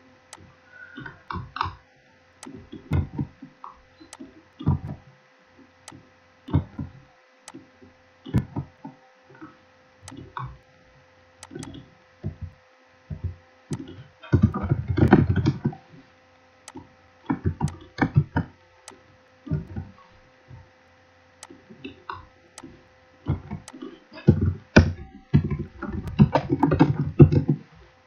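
Computer keyboard typing and mouse clicks in irregular bursts, with denser runs of keystrokes about halfway through and near the end, over a faint steady electrical whine.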